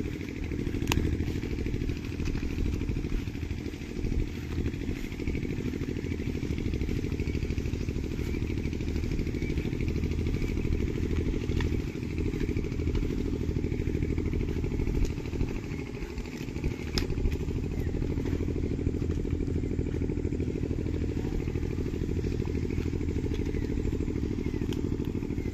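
An engine running steadily, a low even throb that dips briefly about two-thirds of the way through, with a few sharp clicks on top.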